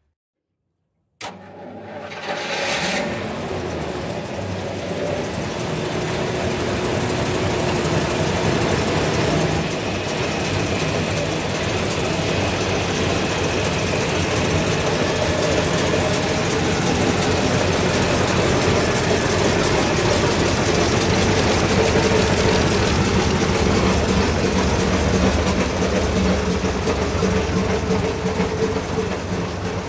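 1936 Ford truck's Ford 302 small-block V8 starting about a second in, then running at a steady idle.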